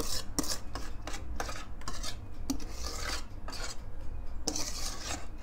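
A utensil scraping the inside of a mixing bowl in a series of short, irregular strokes, as the last of the brownie batter is emptied into the baking tray.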